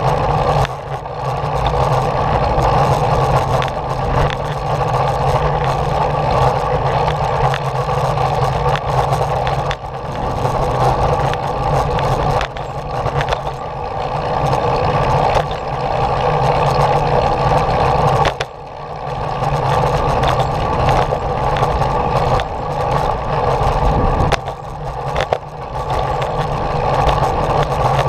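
Steady running noise from the small vehicle carrying the camera as it rolls along a paved path, with a low hum under a louder mid-pitched drone. It eases off briefly about five times, as if the throttle is released and picked up again.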